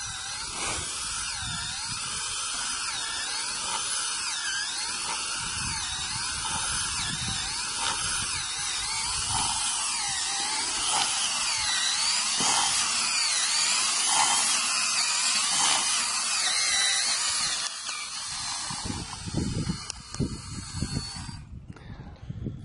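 Cordless drill turning an auger bit as it bores down into sandy clay loam, the motor whining steadily, its pitch wavering up and down with the load. It stops abruptly about 21 seconds in.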